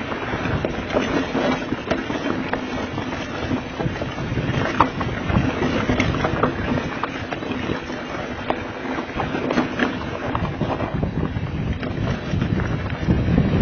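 Diamondback Mission 2 mountain bike descending a loose rocky trail: tyres crunching and skittering over rock, with frequent sharp clatters and knocks from the bike, and wind buffeting the camera microphone.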